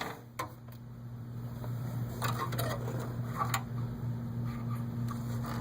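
Scattered plastic clicks, knocks and short scrapes as a SATA hard drive in its blue plastic caddy is squeezed by its tabs and worked out of the drive bay of a Dell T3400 workstation, over a steady low hum.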